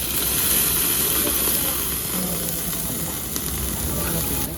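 Meat sizzling on a hot grill: a steady, loud hiss of fat and juices cooking.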